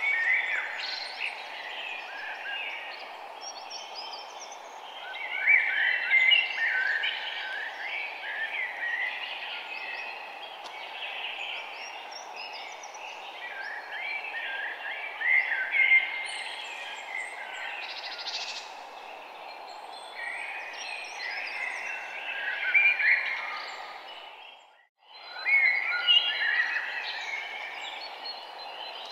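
Small birds chirping busily over a steady background hiss. The sound fades out briefly about 25 seconds in, then comes back.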